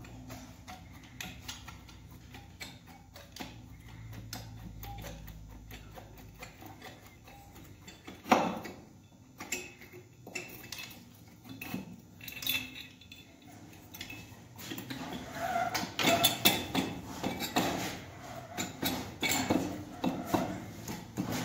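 Light metallic clicks and taps from a motorcycle engine's finned cylinder barrel being worked back and forth by hand down over the piston and onto the crankcase studs. There is one louder knock about eight seconds in, and a busier run of clicks in the last few seconds.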